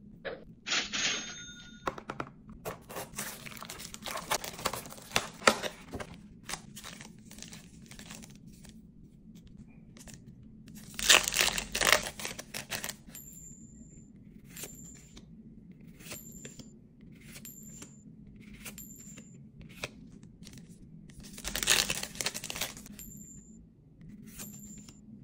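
Plastic shrink-wrap crinkling and tearing off a Yu-Gi-Oh! card box, then a foil booster pack ripped open about eleven seconds in. Trading cards are then flicked through one by one, each with a short high ding. Another loud burst of rustling comes near the end.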